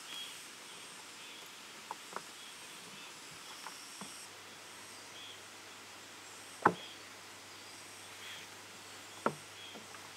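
Quiet outdoor forest ambience: a steady low hiss with faint, repeated high chirps, broken by a few sharp taps, the loudest about two-thirds of the way in and another a little before the end.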